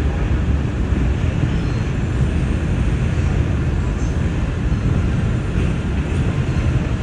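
New York City subway train running along elevated track, heard from inside the car: a steady, loud rumble of wheels on rail and running gear.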